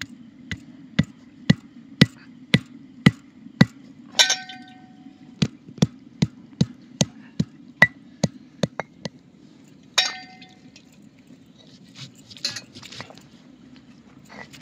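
A stone roller pounding pieces of roasted dried coconut on a grooved stone grinding slab, sharp knocks about two a second, with a ringing clink twice. Near the end the pounding gives way to quieter rolling and scraping as the coconut is ground.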